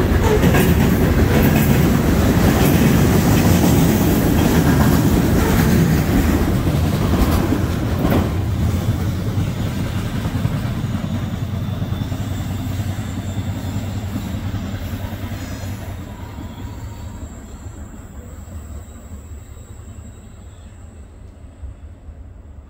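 Freight train of coal hopper cars rolling past, wheels clacking over the rail joints. From about a third of the way in, the sound fades steadily as the end of the train moves away.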